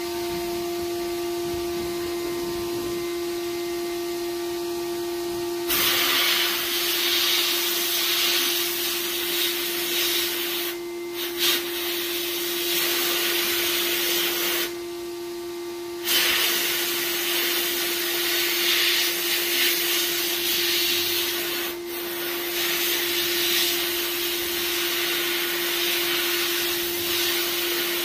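Abrasive media blast cabinet prepping a pistol slide for Cerakote. The cabinet's dust-collector motor runs with a steady hum, and from about six seconds in the blast gun hisses loudly, with a few short pauses.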